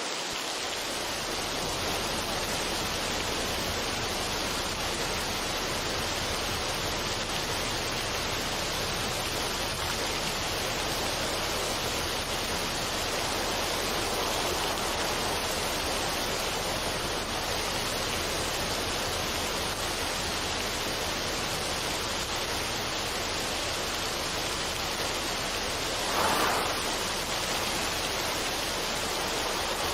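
Steady, even rushing noise with no tune or beat, like running water or a noise track; it swells briefly for about a second near the end.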